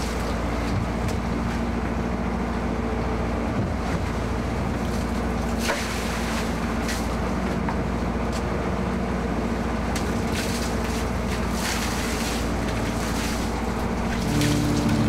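Fishing boat's engine running steadily under way, with a low hum under the rush of water and wind, and a few brief knocks.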